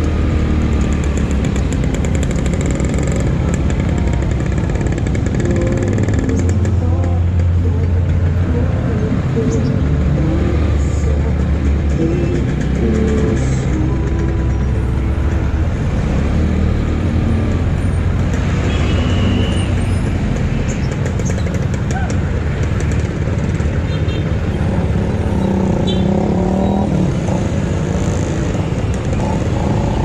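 Motor traffic and road noise: a steady low rumble with engines shifting in pitch, as of motorcycles and cars running in traffic.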